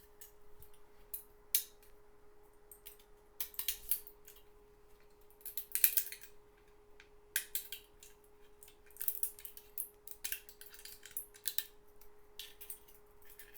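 Resin supports cracking and snapping as they are pulled off an SLA 3D print. The cracks come in scattered clusters, loudest about six seconds in, over a faint steady hum.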